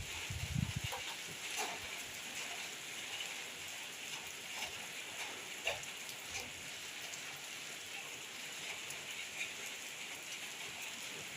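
Steady rain falling, a constant hiss with scattered sharper drips striking a surface. A brief low sound comes near the start.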